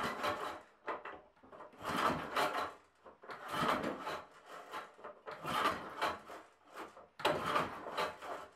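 Recoil pull-starter of an older Briggs & Stratton flathead lawn mower engine pulled about five times, once every second and a half or so. Each pull is a rasping whir as the rope spins the flywheel without the engine starting. No squeal comes from the freshly lubricated ratchet clutch, so it is fixed; the remaining sound is taken by the owner to be probably the rewind starter's spring.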